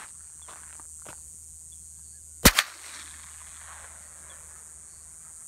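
A single shot from a 1968 Marlin 39A Golden Mountie lever-action .22 rifle, about two and a half seconds in: a sharp crack with a second, smaller crack a split second after and a brief tail.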